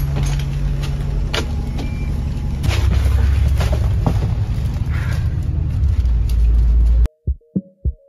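Inside a moving double-decker bus: a steady low running hum and rumble with rattles and knocks from the cabin, the rumble getting louder about two and a half seconds in. About seven seconds in it cuts off abruptly and electronic music with a drum beat begins.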